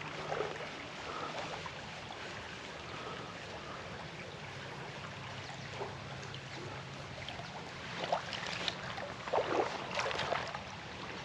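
Steady rush of a small river's flowing water, with a faint steady low hum underneath. A few brief, slightly louder sounds come about eight to ten seconds in.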